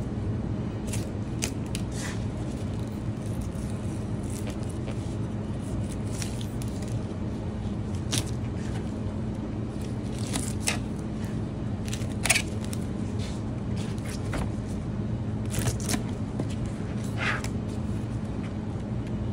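Knife scraping and cutting along a yellowtail snapper on a plastic cutting board, in short, irregular strokes, the sharpest about twelve seconds in. A steady low hum runs underneath.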